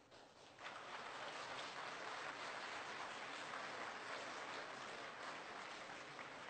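Faint audience applause in a hall, starting about half a second in and thinning toward the end.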